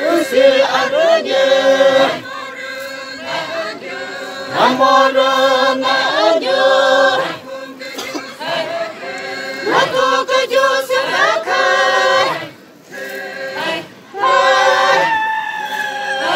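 A group of voices singing an unaccompanied, chant-like song together, in short phrases broken by brief pauses.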